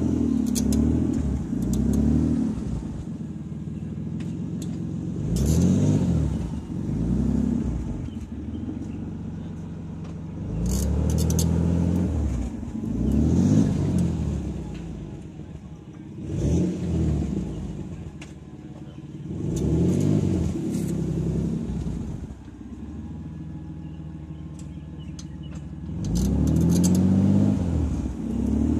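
A 1993 twin-turbo Toyota Supra (2JZ-GTE straight-six) running, its pitch rising and falling about six times, with a sharp click now and then. It carries a strange noise from the left wheel that the owner traced to a worn wheel hub, which a new hub cured.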